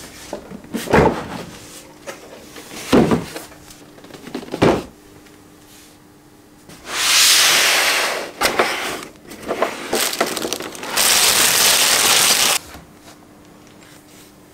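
Cardboard figure box and packaging handled: three knocks in the first five seconds, then two long stretches of sliding, rustling hiss as the box is opened and its contents are drawn out.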